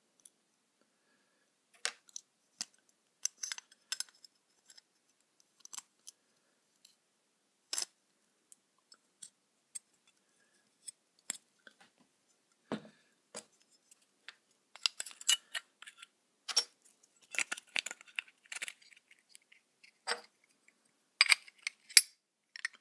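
Pliers working around the rivet posts of a toy car: irregular sharp clicks and snips of the jaws gripping and squeezing, sparse at first and coming thicker in the second half.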